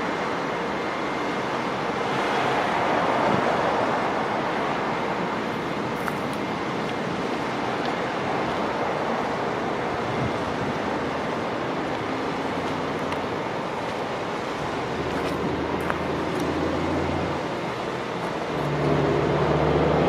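Siemens Charger diesel locomotive standing and idling under a steady background rush. A low engine hum comes up about two-thirds of the way through and grows louder near the end.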